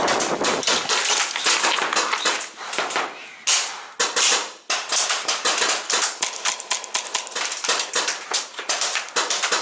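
Airsoft gas-blowback rifle fire: rapid, irregular sharp clacks and pops, with a short lull partway through.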